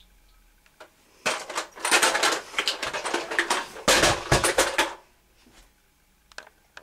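Loud rustling of a duvet with knocks and thumps as someone thrashes about in bed, lasting about four seconds and then stopping.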